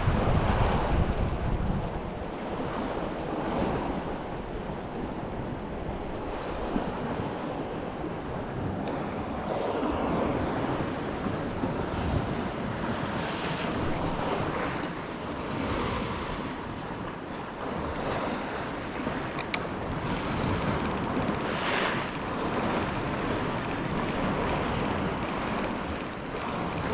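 Sea washing against the shore with wind on the microphone, the wind rumble heaviest in the first two seconds.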